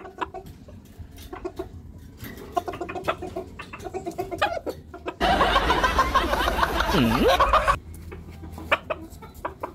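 Chickens clucking softly in short calls, with a louder stretch of noise lasting a couple of seconds just past the middle.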